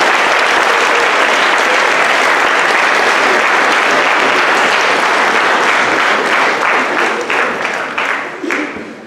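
Audience applauding, loud and steady, then thinning into scattered separate claps over the last few seconds and dying away near the end.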